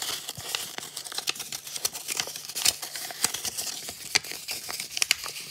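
A sheet of paper being folded and creased by hand, with irregular crinkling and rustling.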